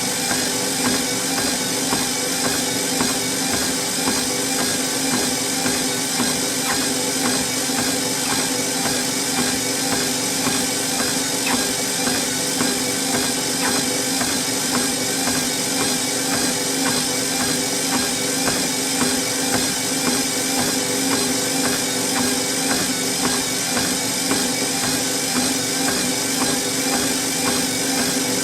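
Treadmill running with someone walking on it: the belt and motor hum steadily under a regular beat of footsteps on the moving belt.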